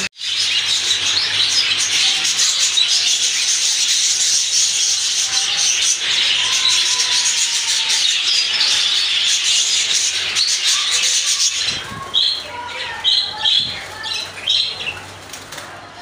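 A flock of budgerigars chattering continuously in a dense, high-pitched twitter. About twelve seconds in the massed chatter drops away, leaving a few separate chirps.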